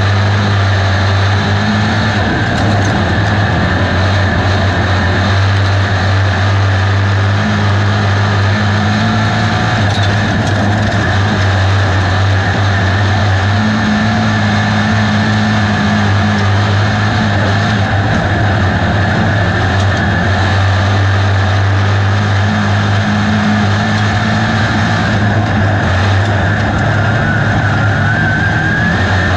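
USRA B-Mod dirt modified's V8 engine running hard at racing speed, heard loud from inside the cockpit. The engine note is steady but shifts every few seconds as the car goes through the turns. A short rising whine comes near the end.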